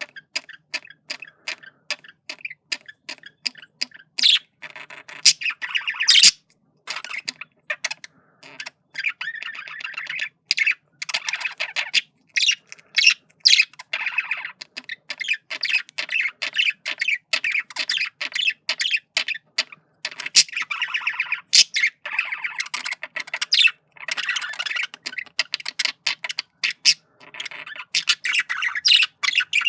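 Male budgerigar's courtship warble: a continuous stream of rapid chattering, clicks and short squawky notes, broken by a few brief pauses.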